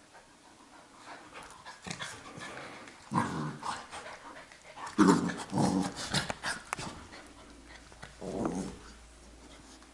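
Two Labrador retrievers, an adult and a puppy, play-growling while they wrestle and tug over a plush toy. Short growls come about three seconds in, a louder run of growls follows from about five to seven seconds, and one more comes near the end, with scuffling between.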